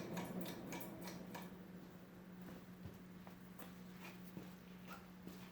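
Hunter Original ceiling fan coasting down after being switched off from high speed, faint and easing off over the first couple of seconds. A steady low hum and scattered light ticks run under it.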